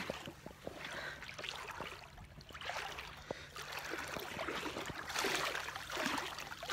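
Water splashing and lapping around a swimmer in irregular swells, with a few small clicks.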